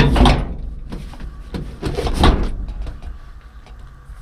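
Clunking and rubbing as the pickup's vinyl bench seat and cab are handled close to the microphone: one burst right at the start and another about two seconds in, then quieter.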